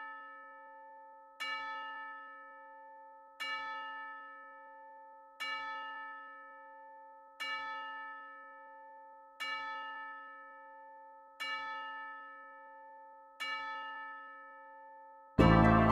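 A single bell note struck about every two seconds, seven times, each stroke ringing out and fading before the next, as the intro of a loop-made Christmas track. Near the end the full track comes in loudly.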